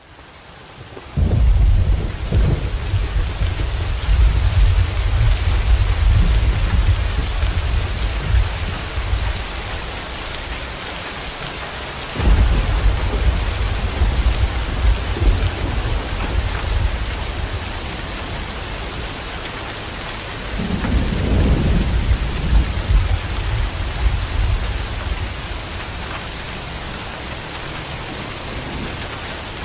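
Steady rain falling on wet pavement and puddles. Deep rumbling swells come in suddenly three times, about a second in, about twelve seconds in and about twenty-one seconds in, and each fades away slowly.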